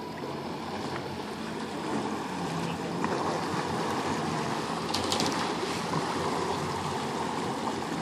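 Sea-Doo RXT Supercharged personal watercraft's engine running steadily at low speed, a little louder about two seconds in, with water churning from the jet.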